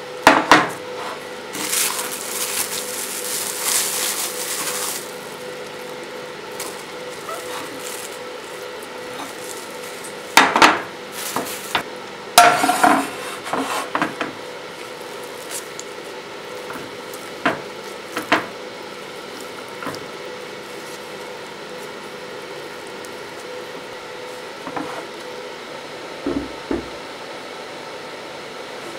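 Plastic film crinkling as it is pulled off a raw chicken, then scattered knocks and clinks of a ceramic plate and the chicken being handled on a marble counter. A faint steady hum runs underneath.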